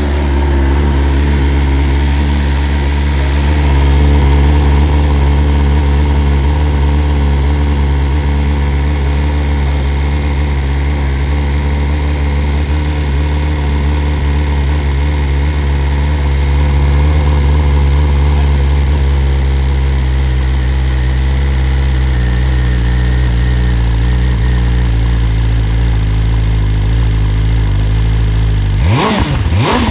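BMW S1000 RR's 1000 cc inline-four engine idling steadily, heard through its side-mounted silencer. Near the end it is revved twice in quick, sharp blips about a second and a half apart.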